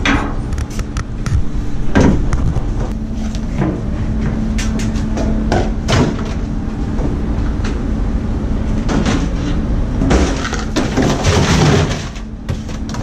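Knocks and clatters of rubbish being handled in a large metal waste bin, its lid lifted and items shifted about. Near the end there is a denser rustling stretch as a wire rack is pulled out over the plastic bin liners. A steady low machinery hum runs underneath.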